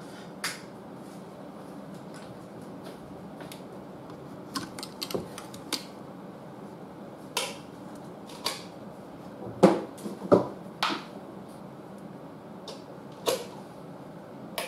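Scattered light clicks and knocks of small objects being handled, with two louder knocks about ten seconds in, over a steady low background hum.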